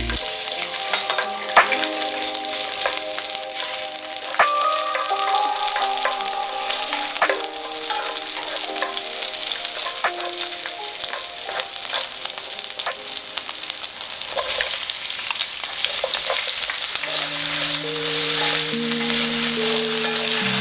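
Food sizzling as it fries in a pan, a steady hiss, with background music playing a simple melody over it.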